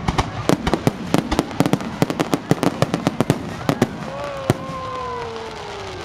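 Aerial fireworks bursting: a rapid, dense volley of sharp crackling pops for about four seconds, then thinning out to a few scattered pops.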